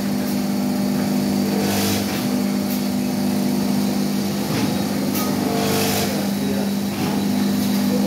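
Blister packing machine running: a steady mechanical hum from its motors and vacuum pump, with several short hisses of air from the pneumatics at uneven intervals.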